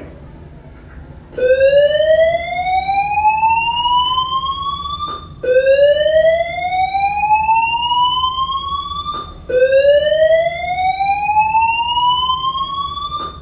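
School fire alarm voice-evacuation speakers sounding the slow 'whoop' evacuation tone: three identical rising sweeps, each climbing steadily in pitch for about four seconds before cutting off and starting again, the first beginning about a second and a half in.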